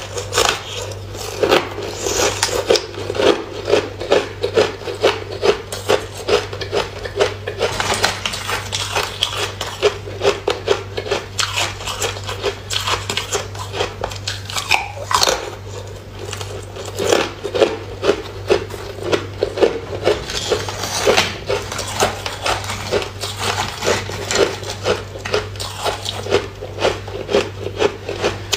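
Frozen ice discs being bitten and chewed close to the microphone: a rapid run of crisp crunches, several a second, over a steady low hum.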